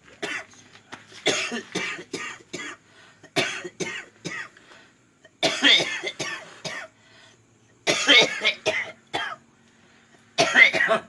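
A man coughing hard in repeated bouts of several coughs each, with short pauses between. It is the chronic cough he has had for more than two years.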